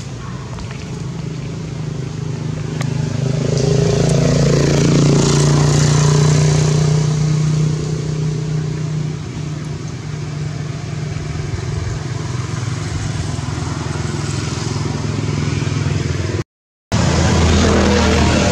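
A motor vehicle's engine hum with steady pitched lines, growing louder about four seconds in and easing after about eight seconds. Near the end the sound drops out briefly, then resumes.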